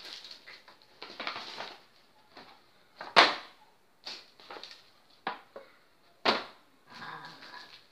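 Rustling of shopping packaging handled by hand, broken by a few sharp snaps, the loudest about three seconds in and another about six seconds in.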